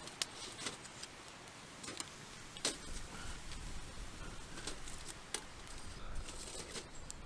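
Wood fire crackling: irregular sharp pops and ticks, one or two a second, over a faint hiss.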